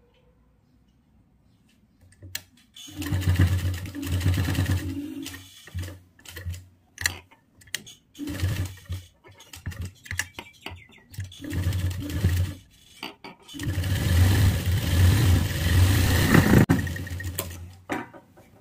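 Sewing machine stitching fabric in bursts: a run about three seconds in, several brief stitches through the middle, and a longer run near the end. It is sewing the neck seam of a kurti.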